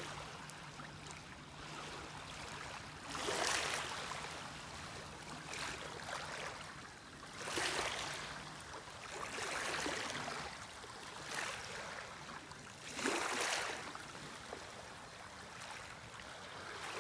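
Small waves lapping and washing at the lake's edge, with a louder wash about every three to four seconds.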